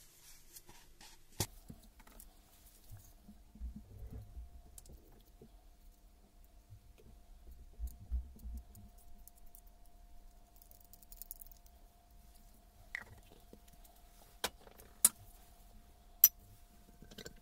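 Gloved hands handling and greasing metal breaker parts: soft rubbing and knocking, then several sharp metallic clicks and clinks near the end as parts are set down and fitted together. A faint steady hum sits underneath.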